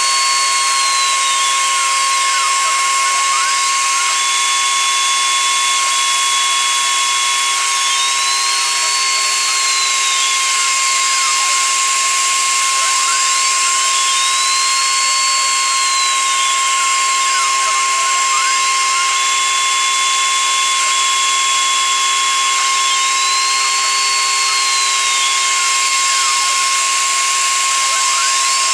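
Mini CNC router milling fibreboard with a 1 mm roughing end mill: a steady high spindle whine with cutting noise, and over it the stepper motors' whine rising and falling in slow arcs every several seconds as the axes trace a circle.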